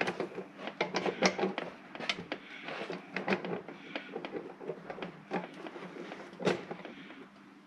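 Irregular light clicks and knocks of an ACIS intake-control actuator being jiggled onto its flap shaft on a 1UZ-FE V8 intake manifold, the fit jamming slightly, with one sharper knock near the end.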